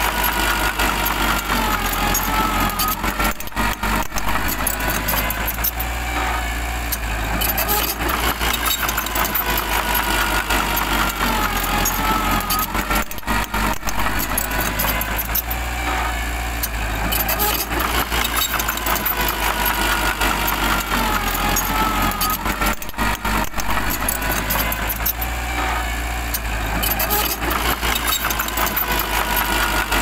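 Mini crawler bulldozer's engine running steadily under load while it pushes soil, with a whine that wavers in pitch.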